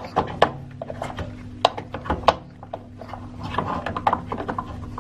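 Plastic drain-pump filter of an automatic washing machine being unscrewed and pulled out of its housing: a series of irregular plastic clicks and knocks.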